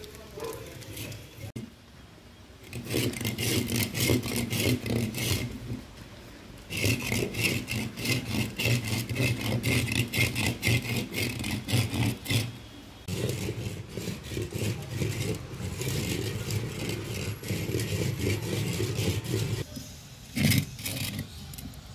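A husked coconut being scrubbed hard back and forth on a rough concrete floor by hand, a fast steady scraping that stops briefly twice, as the last husk fibres are rubbed off the shell. A louder knock comes near the end.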